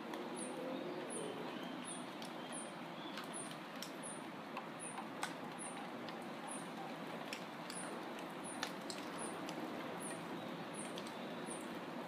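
Wind rustling through the leaves of a mango tree in a steady hiss. A short high chirp repeats about twice a second throughout, with a few sharp ticks here and there.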